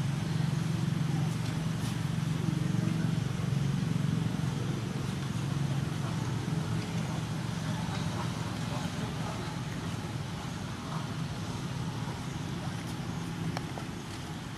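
A motor engine running steadily: a low, even hum that fades away about a second before the end.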